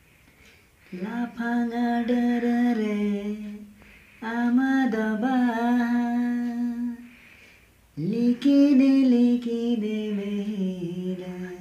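A man singing a Santali song unaccompanied, in three long drawn-out phrases about a second in, four seconds in and eight seconds in, each held on a steady note with short pauses between.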